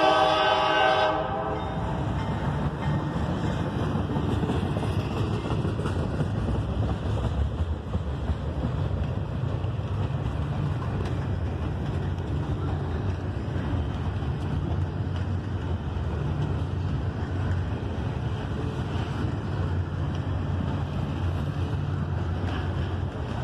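A freight locomotive's air horn sounds and cuts off about a second in. It gives way to a long string of double-stack intermodal container cars rolling past, a steady low rumble of steel wheels on rail.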